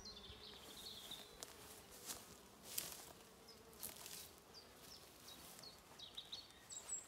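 Faint, steady buzzing of honeybees flying about the hive. Over it a small bird repeats short falling chirps, and there are a few brief rushes of noise.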